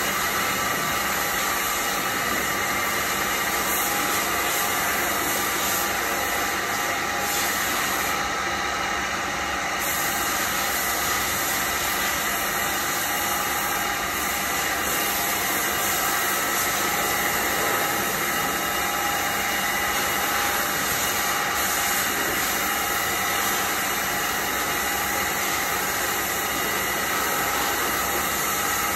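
Machinery running steadily: an even hiss with several constant whining tones.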